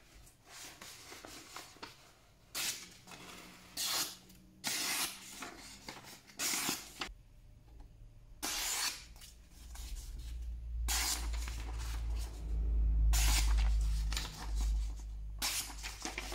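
Sheets of paper being sliced against the edge of a freshly restored single-bevel knife in a sharpness test: a series of short, papery cuts, about nine in all. A low rumble builds through the second half and is loudest near the end.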